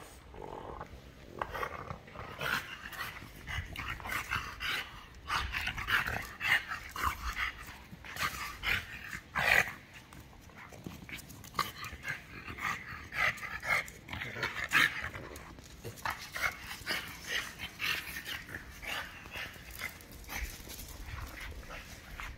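A golden retriever and a French bulldog playing together: a busy, irregular run of short dog play noises, with louder peaks scattered throughout.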